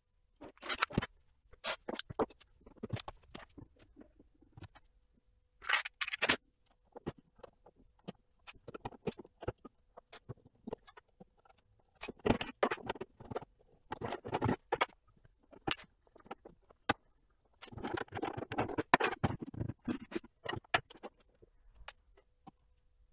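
Hands taking apart an Anet A6 3D printer's frame, played back sped up: a fast, irregular jumble of clicks, taps and rattles from metal rods and plastic parts, busiest around the middle and again near the end.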